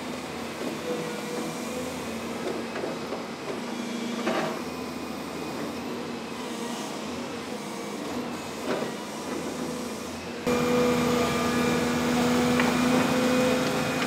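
Heavy construction machinery running with a steady engine drone during demolition of a retaining wall, with a few sharp knocks. It gets suddenly louder about ten and a half seconds in.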